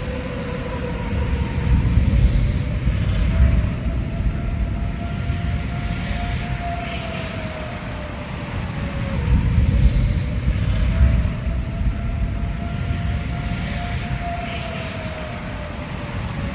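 Outdoor tornado warning siren sounding a steady wail over a low rumbling noise. Its pitch slowly rises and falls, and it swells louder twice, about eight seconds apart.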